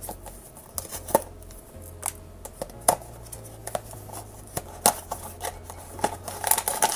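Small cardboard blind box being opened by hand: scattered sharp clicks and rustles of the box and its packaging as the seal is peeled and the flaps are worked open.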